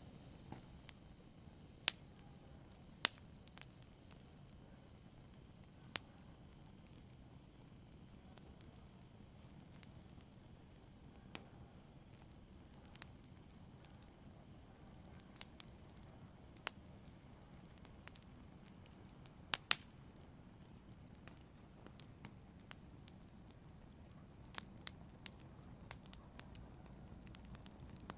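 Wood logs burning in a fireplace: sharp, irregular crackles and pops over a faint low rumble of the flames, with a quick double pop a little past the middle.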